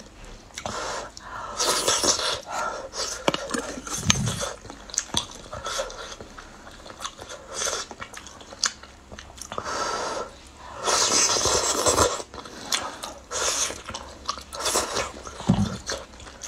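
Close-miked mouth noises of eating hot soup noodles: several long breathy slurps, the loudest about ten to twelve seconds in, with chewing and lip smacks between.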